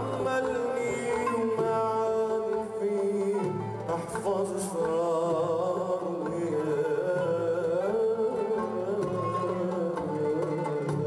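Live Arabic ensemble music: plucked strings and hand percussion, with a wavering, vibrato-laden melody line coming in about four seconds in.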